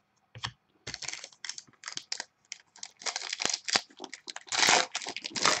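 A foil trading-card pack wrapper crinkling and tearing as it is ripped open by hand, in an irregular run of crackles that grows loudest near the end.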